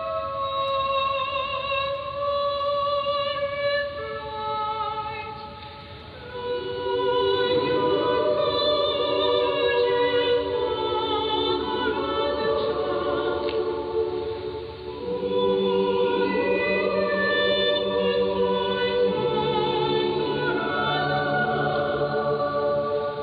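Church choir singing in sustained, overlapping parts, heard over AM longwave radio reception that makes it sound narrow and muffled. The singing is lighter at first and grows fuller about six seconds in.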